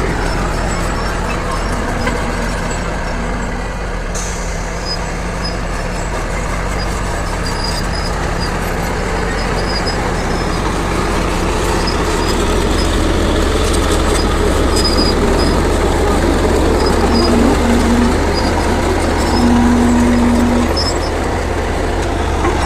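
Heavy diesel earthmoving machine engine running steadily, growing a little louder toward the end.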